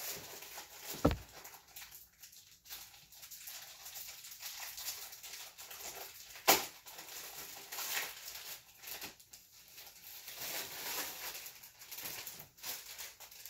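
Rustling of a clear plastic sleeve and a rolled diamond-painting canvas being handled and pulled apart, with a dull knock about a second in and a sharper, louder knock about six and a half seconds in.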